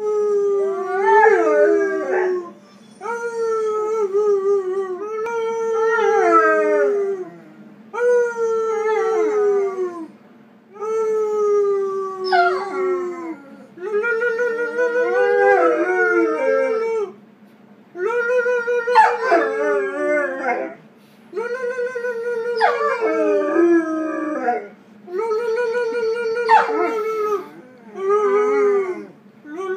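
A Weimaraner dog howling: about ten long, wavering howls, each a few seconds long and sliding down in pitch at the end, with short breaths between them.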